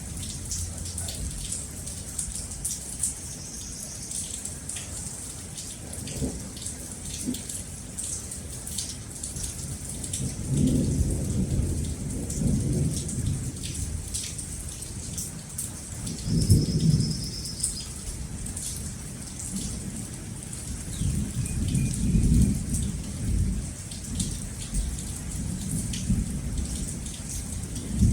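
Steady heavy rain falling, with many drops pattering, while thunder rumbles low several times: rolls about a third of the way in, a stronger one a little past the middle, and another later on.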